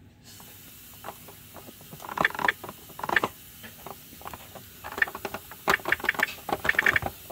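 Plastic hands of a Telly the Teaching Time toy clock being turned by hand, clicking as they ratchet round. The clicks come in irregular bursts and grow busier in the second half as the hands are wound on towards the asked-for time.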